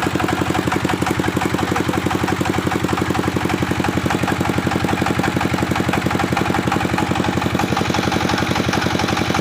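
Bandsaw machine running steadily with a fast, even, engine-like pulse.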